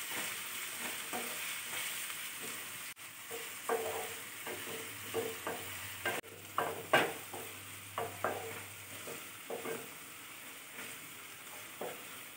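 Sliced onions frying in hot oil with a steady sizzle, while a wooden spatula stirs them, scraping and tapping against the nonstick kadai at irregular moments.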